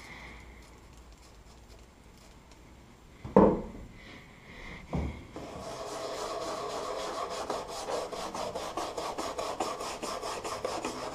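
Small hand-held detailing brush scrubbing the weathered plastic bed rail cap of a Ford F-150 in quick back-and-forth strokes, about five a second, working cleaner into the faded plastic; it starts about five seconds in. Before it come two thumps, the first of them the loudest sound.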